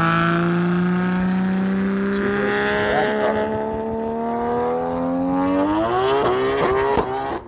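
Car engine accelerating hard. Its pitch climbs slowly and then rises steeply about six seconds in.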